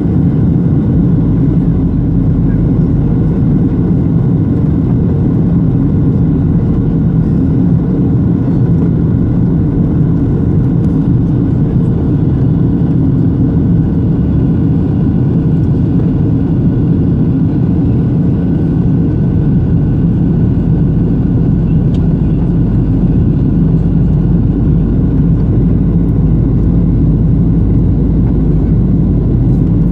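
Steady cabin noise inside a Boeing 737-700, heard from a seat near the wing: a low, even rumble of the CFM56-7B engines and airflow, with faint steady engine tones above it.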